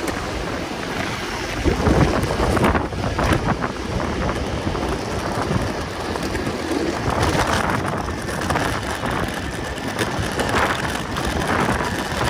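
Wind rushing over the microphone with steady street and rolling noise, and a few scattered knocks in the first few seconds.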